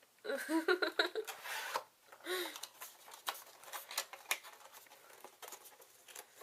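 Packaging being handled: a run of light clicks and crinkles from plastic and cardboard, after a few quiet words of voice in the first second or two.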